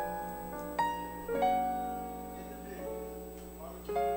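Piano playing slow, soft chords, each struck and left to fade before the next.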